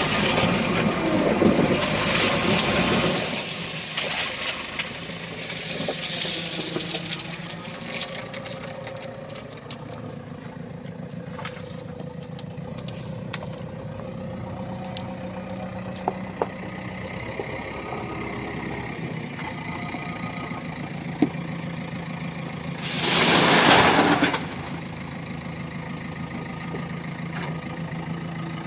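JCB 3DX backhoe loader's diesel engine running, loud and busy for the first three seconds, then settling to a steadier, quieter run with a few sharp clicks. About 23 seconds in, a loud rushing burst lasts about a second and a half.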